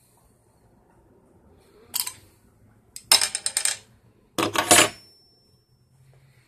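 Metal bottle opener clicking and scraping against the cap of a glass bottle: a short clatter, then a quick run of clicks, then a louder metallic clink that leaves a brief thin ring.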